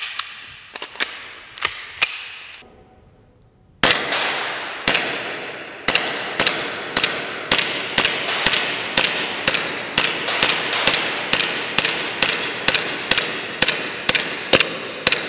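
ASG Glock gas-blowback airsoft pistol firing a full magazine: a few shots, a pause of about a second and a half, then a steady string of shots about two to three a second, each crack echoing in a large empty concrete hall.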